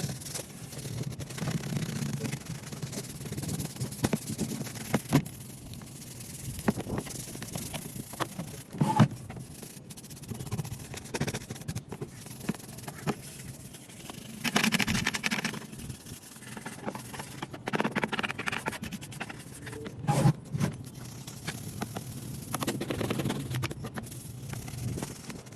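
Irregular rubbing and scraping on a box being worked by hand, with scattered clicks and knocks and a few louder stretches of scraping.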